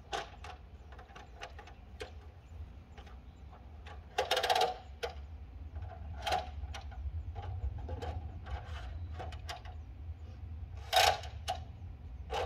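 Folding sawhorses being opened and set down: a string of sharp clicks and clacks as the legs snap open and lock, with a loud clattering cluster about four seconds in and a single loud clack near the end.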